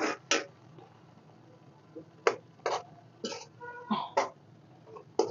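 Metal spatula scraping and knocking against an iron kadhai as noodles are stirred, in short irregular strokes with pauses between them.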